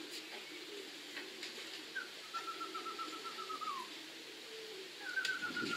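Pigeons cooing low around the lofts while a songbird gives a high, rapidly trilled call on one pitch twice, each held for a second or two and dropping at the end. A low rumbling noise comes in near the end.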